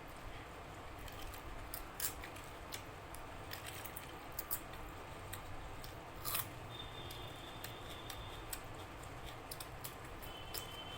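A person eating close to the microphone: scattered sharp clicks and smacks of chewing and mouth sounds over a low steady room hum.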